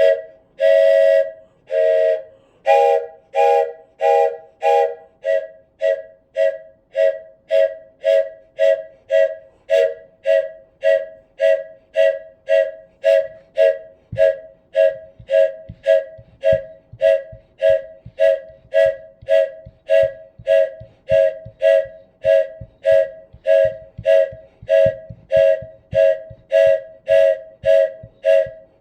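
Wooden train whistle sounding its chord in short rhythmic toots, about two a second, with one longer blast about a second in. Low, regular thumps join in about halfway through.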